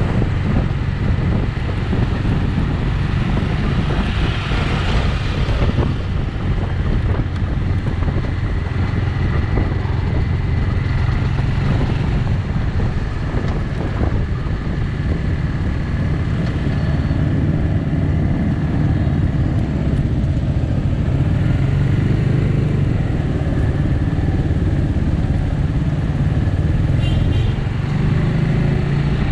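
A Bristol 250 Classic motorcycle's 250cc engine running steadily while cruising, with road noise around it.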